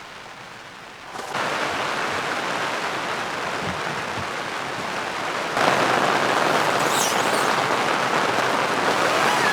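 Heavy rain falling, an even hiss that comes in about a second in and grows louder about halfway through.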